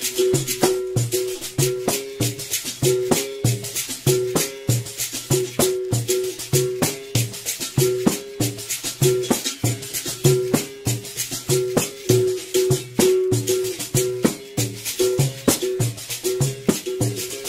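Berimbau played in a fast, rhythmic toque, the struck wire alternating between two notes, with the caxixi basket rattle shaking along with the strokes.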